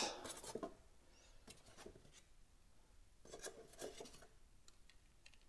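Faint handling sounds: scattered soft clicks and rubbing as small statue parts are picked up and moved about.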